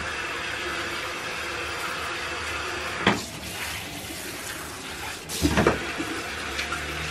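Handheld shower running steadily during a dog bath. The spray goes quieter for a couple of seconds after a sharp knock about three seconds in, then comes back after a louder bump about five and a half seconds in.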